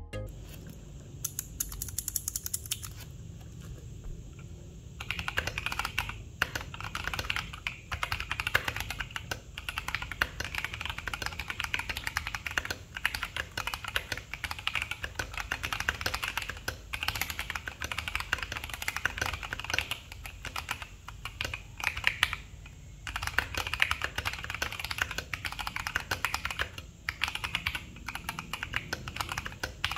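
Typing on a Duke65 mechanical keyboard with Durock Koala tactile switches: a fast, continuous run of keystrokes, lighter for the first few seconds and then denser, broken by short pauses.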